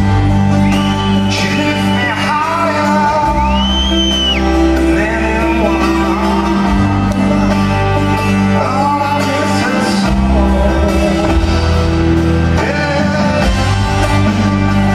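Live rock band playing in a large hall, heard from the audience: a lead vocal sung over guitars and steady, sustained bass notes that change every few seconds.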